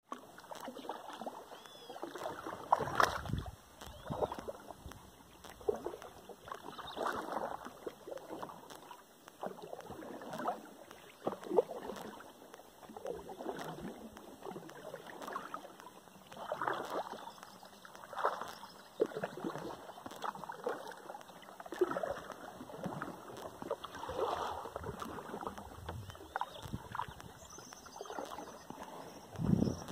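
Kayak paddle strokes dipping and pulling through calm water, one soft swish about every one and a half seconds.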